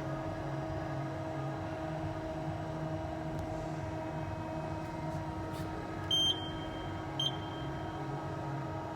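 Kia Turn 15 CNC lathe running with a steady hum. Two short electronic beeps sound, one about six seconds in and a shorter one a second later.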